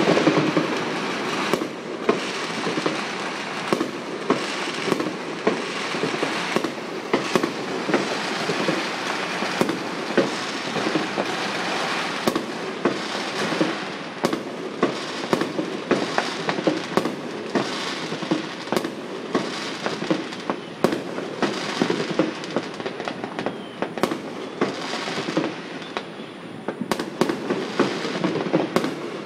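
Fireworks going off without pause across the city: a dense, continuous crackle with many sharp bangs at irregular intervals, several a second, as aerial shells burst.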